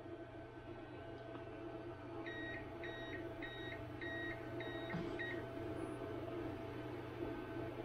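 CyberPower 450VA UPS on battery beeping six times in quick succession, about two seconds in, over the steady hum of two running Anet ET4 3D printers. The owner takes this beeping as the UPS warning that two printers draw more current than it is designed to sustain in backup mode.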